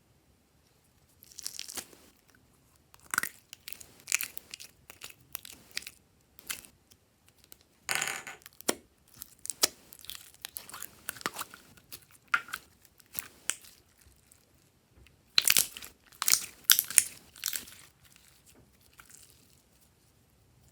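Glossy slime being squished and stretched by hand, giving irregular bursts of sticky crackling and popping with short quiet gaps; the loudest burst comes about fifteen to seventeen seconds in.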